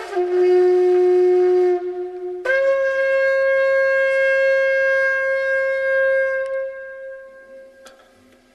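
Long spiral Yemenite-style shofar blown in long held blasts: a low note, then about two and a half seconds in it jumps up to a higher held note that slowly fades away near the end.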